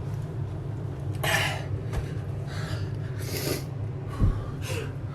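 A man breathing hard through a chilli burn: four sharp, hissing gasps and sniffs a second or so apart, over a low steady hum.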